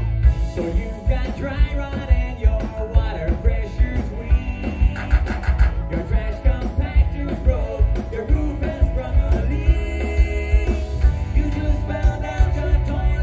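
Rock band playing live, with drums and electric guitar. A held low chord breaks into a steady driving beat right at the start.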